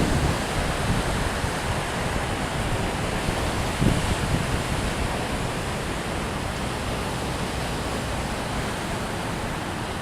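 Surf washing on a beach, a steady hiss of breaking waves, with wind rumbling on the microphone and one stronger gust about four seconds in.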